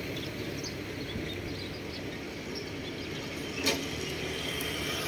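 Steady outdoor background rumble, with one sharp click about three and a half seconds in.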